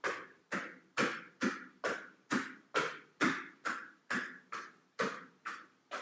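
A person breathing out in short, sharp, forceful puffs of air in a steady rhythm, about two a second, keeping time with a twisting yoga movement.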